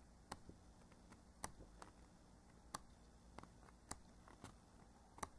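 Near silence, broken by faint short clicks that come a little over a second apart.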